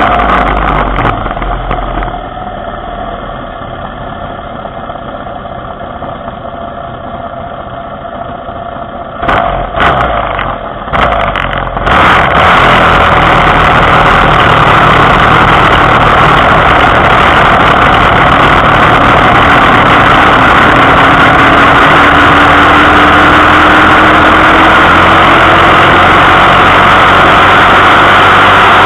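Engine of a small vehicle slows and drops to an idle, gets a few quick throttle blips about ten seconds in, then pulls away and runs loud and steady at speed, its pitch slowly rising later on.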